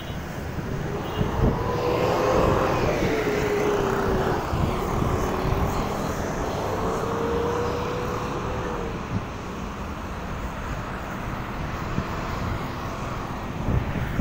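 Engine noise from something passing by, swelling about two seconds in and then slowly fading, with a steady whine that sags in pitch. Wind rumbles on the microphone throughout.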